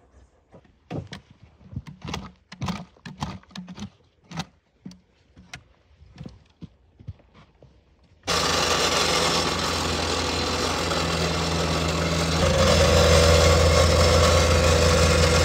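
Footsteps crunching on frozen soil in a trench, irregular steps, then about eight seconds in a machine's engine cuts in abruptly and runs steadily, getting louder around twelve seconds with a steady drone.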